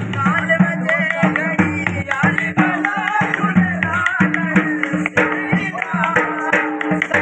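Dhol drum beating a jhumar dance rhythm, with a wavering melody over steady held low notes.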